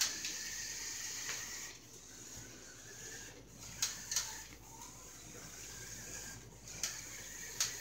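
Electric motors and gearing of a remote-controlled Lego Technic hovercraft driving across a wooden floor: a steady high whine, with a few faint clicks.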